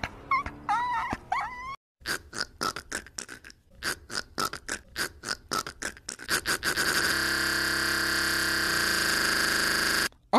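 Car tyres squealing in short wavering squeals during a drift; then, after a brief gap, a hand spray bottle squirted in fast succession, the squirts speeding up; then a pressure washer spraying, a steady hiss with a pump hum, which cuts off suddenly near the end.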